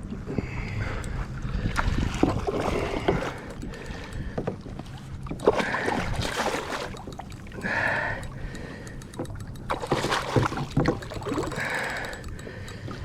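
Water sloshing and splashing around a kayak, with wind on the microphone and scattered sharp clicks and knocks.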